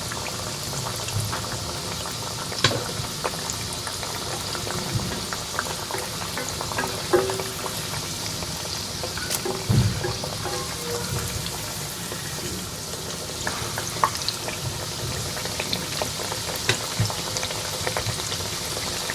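Breadcrumb-coated chicken fillets frying in hot oil in a kadhai: a steady sizzle with scattered sharp pops and crackles.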